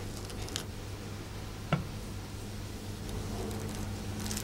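Faint crackling of dry onion skin being peeled off with a paring knife, with one sharp click just under two seconds in, over a steady low hum.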